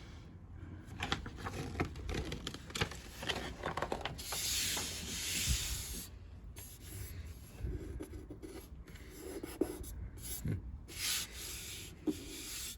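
Paper instruction manual being leafed through: pages rustling and rubbing, with small handling clicks and two longer swishes of sliding paper, one around four seconds in and one near the end.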